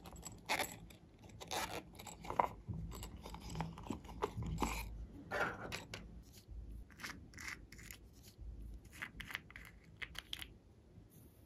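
Small plastic makeup cases and pots being handled and opened by hand: irregular clicks, taps and short scrapes of plastic lids and cases.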